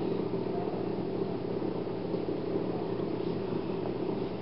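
Steady low background hum made of several fixed tones, with no distinct events.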